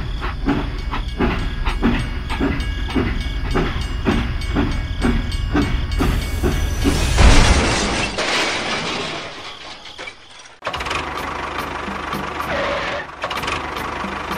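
Toy steam locomotive running on plastic track: a regular chugging beat, about two to three a second, over a low rumble. About seven seconds in comes a loud steam hiss that fades away, and after a sudden break a different steady noise takes over.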